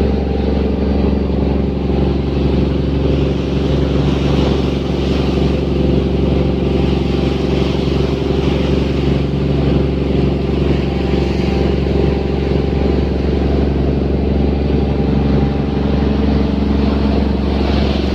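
Fishing boat's inboard engine running steadily at an even speed, with a constant low hum and some hiss over it.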